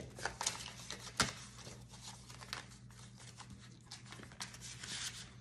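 Paper banknotes being handled and slipped into a plastic zip pouch in a ring binder: crinkling and rustling with small clicks, and one sharper tap about a second in.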